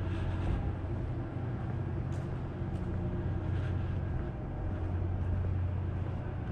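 Steady low mechanical hum, with a few faint ticks.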